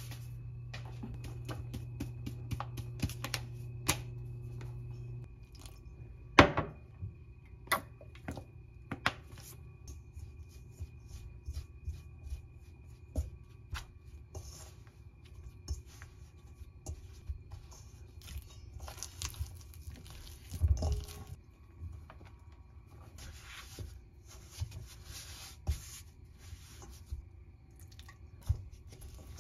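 Dough-making sounds: a paper flour bag being handled, then a spoon stirring and scraping flour against a stainless steel mixing bowl, with many small clicks and knocks. A sharp knock about six seconds in is the loudest sound.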